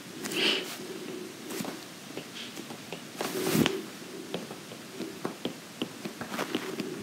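Stylus tapping and stroking on a tablet screen as points and short dashes are drawn: a string of light, irregular ticks, with two louder brief rustling sounds about half a second and three and a half seconds in.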